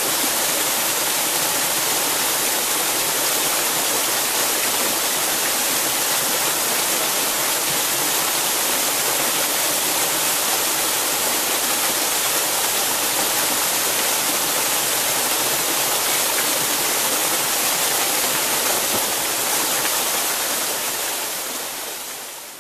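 Small waterfall pouring over a rock face into a pool: a steady rushing hiss of falling water that fades out near the end.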